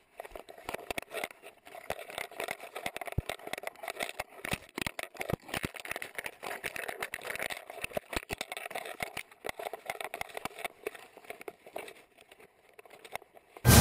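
Rustling and irregular knocks and scrapes from a GoPro strapped to a husky as the dog pushes through leafy brush by a chain-link fence: the camera housing bumping and leaves and branches brushing past it.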